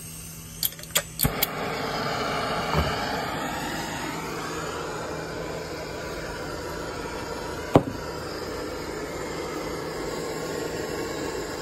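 Four quick sharp clicks as a spark striker lights a hand-held propane torch, then the torch flame burning with a steady hiss while it heats a copper joint for soldering. One sharp click stands out about two-thirds of the way through.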